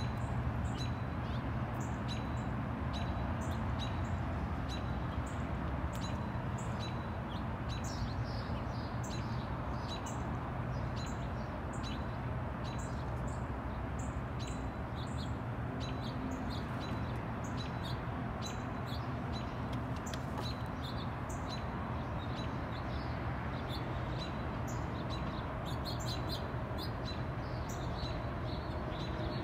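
Small songbirds chirping in the background, short high calls scattered throughout, one note repeated about once a second, over a steady low rumble.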